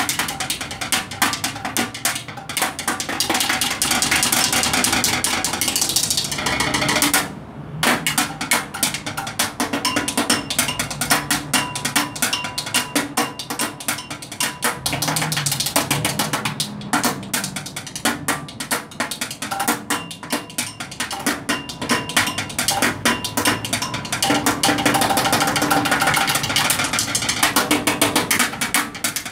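Drumsticks drummed fast on a plastic street litter bin: a quick, busy rhythm of hard hits with dense rolls. It breaks off briefly about seven seconds in, then carries on.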